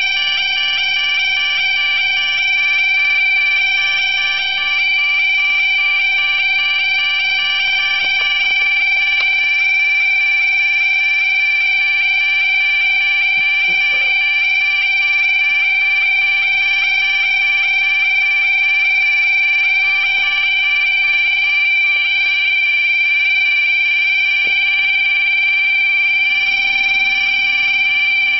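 Level crossing audible warning alarm sounding while the barriers are down, a loud electronic high-pitched tone with a fast repeating warble that keeps on without a break.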